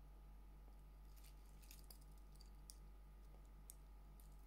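Faint clicks and light rattles of a Holzkern wood-and-steel watch bracelet and its clasp being handled, scattered irregularly from about a second in, over a steady low hum.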